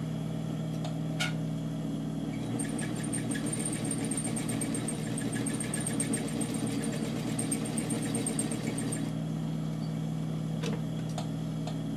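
Sewing machine stitching a topstitch along a fabric collar. It runs from about two and a half seconds in until about nine seconds, with rapid even ticking from the needle over a steady motor hum.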